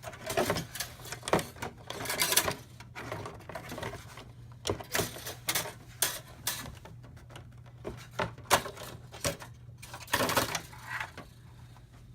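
Irregular clicks, taps and rattles of a GTX 970 graphics card being handled and fitted into a desktop computer case, thinning out near the end, over a low steady hum.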